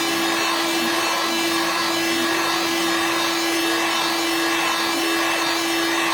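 Hot-air heat gun blowing steadily, a constant motor hum under the hiss of air, warming a phone's back glass to soften the adhesive before it is pried open.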